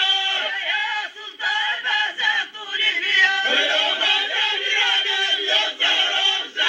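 Male chorus of a Moroccan Rokba (ahwach-style) folk troupe chanting together, with drum strikes.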